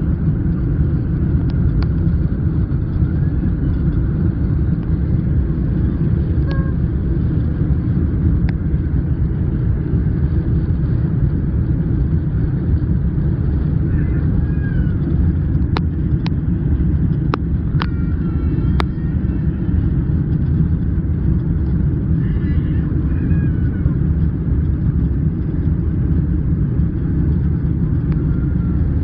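Steady, loud rumble of an airliner's jet engines and rushing air, heard inside the cabin as the plane climbs just after takeoff. A few faint clicks come about halfway through.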